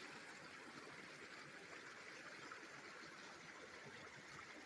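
Faint, steady rushing of running water.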